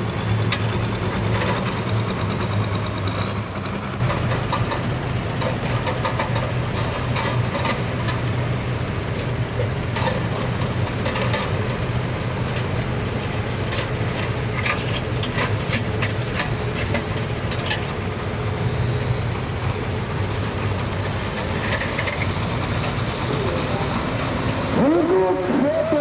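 Pulling tractors' diesel engines idling with a steady low rumble, with scattered knocks and clatter over it.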